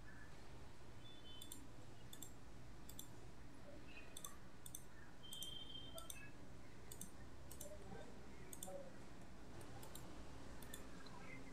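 Faint computer mouse clicks, irregularly spaced about one to two a second, placing points on a map.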